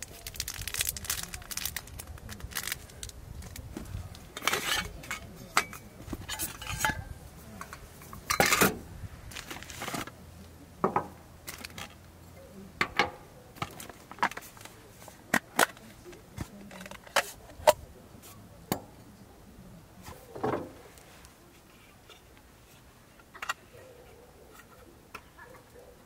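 Camping cookware and small gear being unpacked by hand from a soft-sided bag: metal pots and utensils clinking and knocking, items set down on a wooden deck, with rustling of the bag in between. The clinks come thick and fast at first, then spaced out a second or more apart, and thin out near the end.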